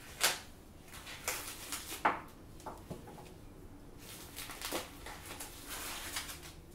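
Plastic film wrap on a packaged raw steak being slit with a knife and peeled off its plastic tray: irregular crinkling rustles, with two sharper crackles, one just after the start and one about two seconds in.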